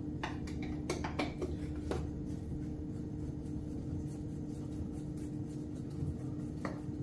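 Light clicks and rubbing of hands working at a Jeep distributor cap, a handful of clicks in the first two seconds and another near the end, over a steady low hum.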